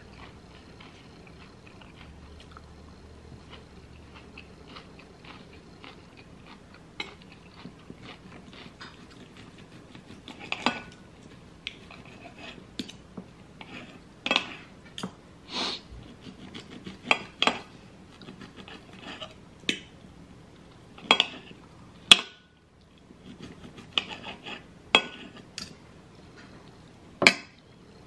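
Steel knife and fork clinking and scraping on a ceramic plate while cutting tri-tip steak, with close-miked chewing between the strokes. The sharp clinks come sparsely at first and grow more frequent in the second half.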